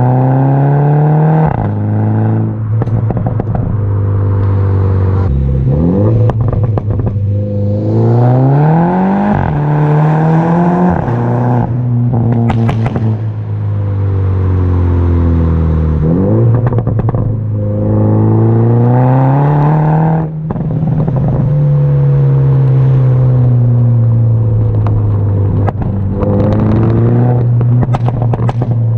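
Mini Cooper S F56's 2.0-litre turbo four-cylinder through a straight-pipe exhaust, recorded close at the tailpipe while driving. It pulls up through the revs again and again, drops in pitch on lift-offs and shifts, and pops and crackles on the overrun.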